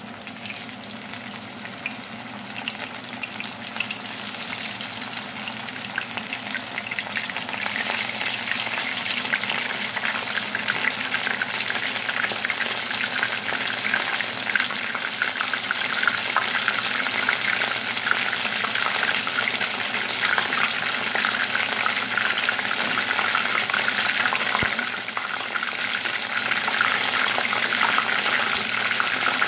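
Egg-coated oyster mushroom pieces shallow-frying in hot oil: a crackling sizzle that builds over the first several seconds as more pieces go into the pan, then holds steady.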